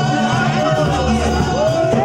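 Music with a repeating bass line and singing.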